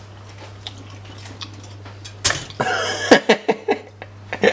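Fingers picking a toasted Pop-Tart out of a pop-up toaster's slot: a quick run of small clicks and taps in the last second and a half, after a short burst of noise a little over two seconds in. A faint steady low hum sits under the first three seconds.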